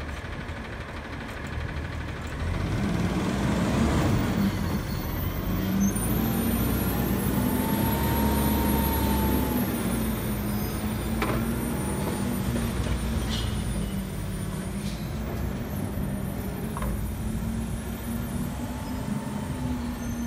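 Front-loading garbage truck's diesel engine revving up about two and a half seconds in and holding under load while its hydraulic arms lift a trash container over the cab to dump it. A faint whine rises and falls through the lift, and a few sharp clanks follow in the second half.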